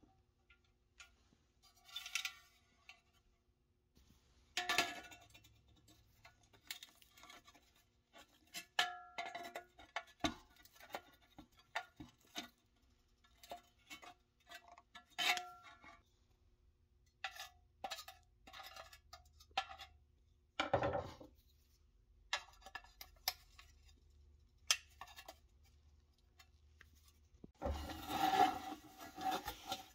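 Scattered clicks, clinks and short scrapes of thin rusty pressed-steel toy truck parts being handled and worked with small pliers. Near the end, a longer stretch of scraping and rattling of metal on metal.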